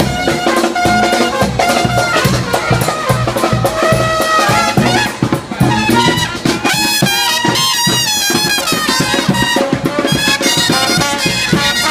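Brass band playing live: trombone and other horns holding and sliding through notes over a steady drum beat.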